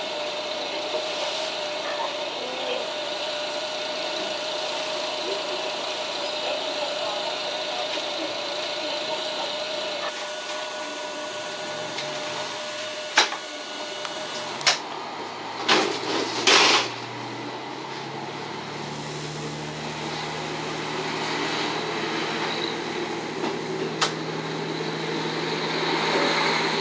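Diesel railcar engines idling while standing at a station, with a few sharp clicks and short hisses partway through. Then the KiHa 54 diesel railcar's engine throttles up to a deep, steady note as the train starts to pull away.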